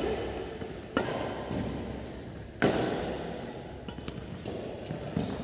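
Badminton rally: rackets striking the shuttlecock with sharp, echoing hits, two loud ones about one and two and a half seconds in, then fainter hits and footfalls on the court. A short high squeak comes just before the second loud hit.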